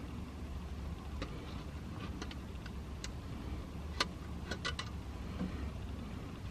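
Scattered small clicks and ticks of plastic being handled as the backing film is peeled off double-sided tape on a carbon fiber trim piece, the sharpest about four seconds in with a quick run of clicks right after, over a steady low rumble.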